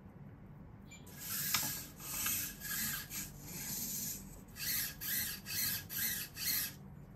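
Nybble robot cat's small leg servo motors buzzing in short bursts as its legs drive it through a push-up routine. The bursts start about a second in and settle into an even pace of about two a second near the end.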